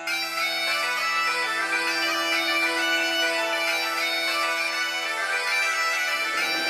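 Background music: a steady held drone with a melody played over it.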